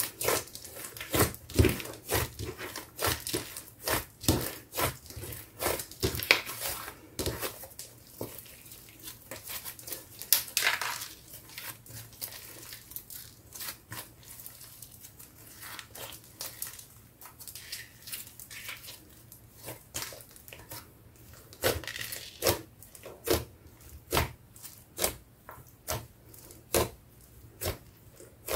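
Hands squeezing, folding and poking a thick pink clay slime mixed with small beads, giving irregular sharp pops and crackles. The pops are dense at first, sparser through the middle, and busy again near the end.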